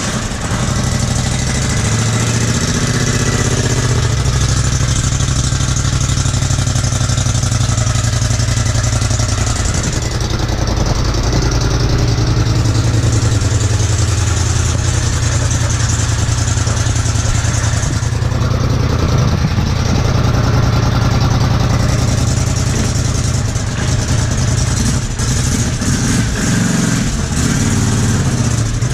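Polaris Scrambler 850 ATV's 850 cc parallel-twin engine idling steadily, just after being started.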